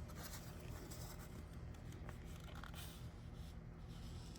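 Dry paper towel wiping squeezed-out marine sealant off a fiberglass hard top: a few faint rubbing, rustling strokes over a low steady hum.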